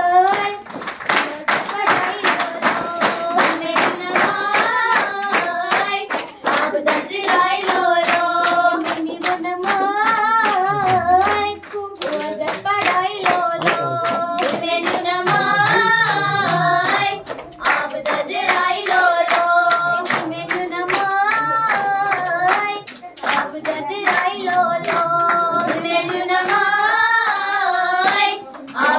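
Girls' voices singing a song together into a microphone in repeated phrases, with brief breaks between phrases, accompanied by steady rhythmic hand claps keeping the beat.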